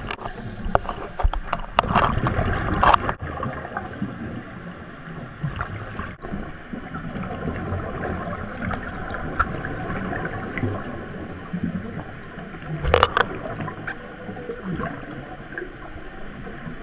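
Scuba divers' regulators breathing underwater: exhaled bubbles gurgling over a steady muffled hiss, heard through an underwater camera housing. Louder rushes of bubbles come about two seconds in and again about thirteen seconds in.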